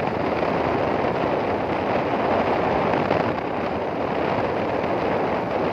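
Steady rush of wind on the microphone from a moving vehicle, mixed with road and vehicle noise.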